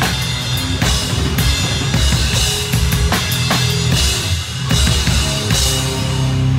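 Live death metal/crust band, with the drum kit heard up close: rapid kick and snare with repeated cymbal crashes over distorted guitar and bass. The drumming stops near the end, leaving the guitars ringing on a held chord.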